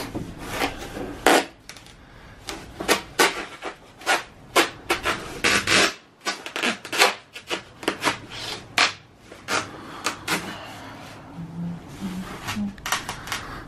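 R-Tech foil-faced foam board insulation scraping and squeaking against the wooden floor framing as a tight-fitting piece is pressed and worked into place by gloved hands, in many short, irregular rubs.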